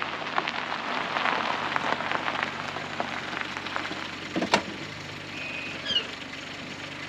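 Honda HR-V rolling slowly over gravel, its tyres crunching and popping small stones, with the engine running quietly underneath. A single sharp click comes about four and a half seconds in, and a few short high chirps follow near the end.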